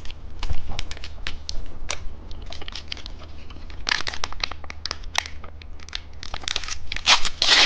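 Plastic candy wrapper crinkling and crackling as it is handled and torn open, with a dense flurry of crinkles about halfway through and another near the end.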